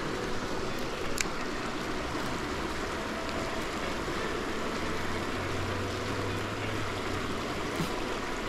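A river flowing: a steady, even rush of moving water, with a single click about a second in.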